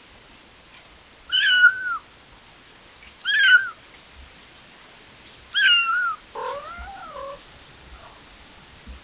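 Calico kitten meowing three times: loud, high-pitched calls about half a second each, each falling in pitch at the end. A lower, quieter cat call follows near the end.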